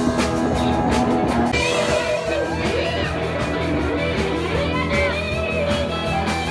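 Live band playing blues-rock, with electric guitars, bass and drums.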